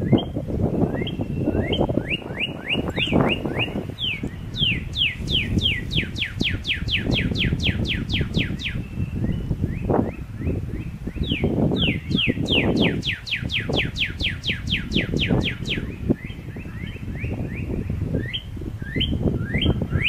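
Runs of rapid bird chirps, each a quick downward sweep, about four or five a second, stopping and starting several times. They come from a bird-song track dubbed over the footage, not from live birds. Under them runs a loud, uneven low noise.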